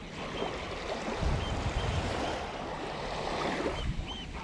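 Small waves lapping at the edge of a sandy beach, with wind rumbling on the microphone, strongest about one to three seconds in. A few short, high chirps sound over the top.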